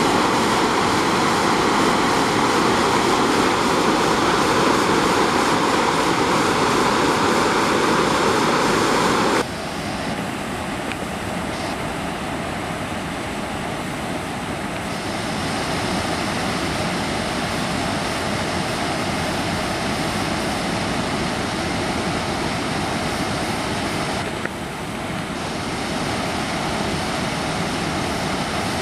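Water gushing from a reservoir inflow outlet into the lake, a steady loud rush of churning water. About nine seconds in it abruptly becomes quieter and thinner, then holds steady.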